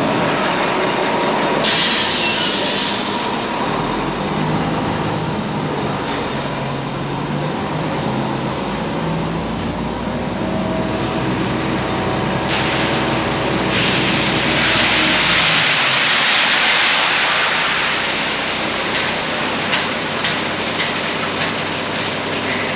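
Concrete mixer truck running with its drum turning as it gets ready to discharge, a steady mechanical rumble. Short hissing bursts come about two seconds in and again around thirteen seconds, followed by a few seconds of rushing noise.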